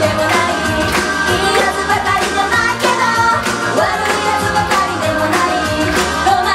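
Female idol group singing a punk-rock song live on stage over loud rock backing with a steady drum beat.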